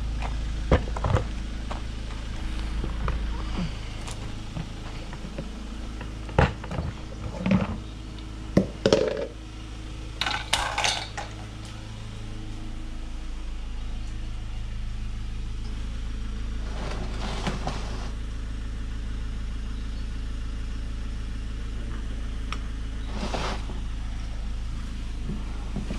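Scattered knocks, clicks and scrapes of someone moving about and handling things, over a steady low rumble. The knocks bunch together between about six and eleven seconds in, and there are two short rustling hisses later on.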